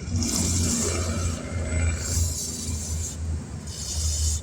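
An aerosol can of penetrating spray hissing in three short bursts over a steady low rumble.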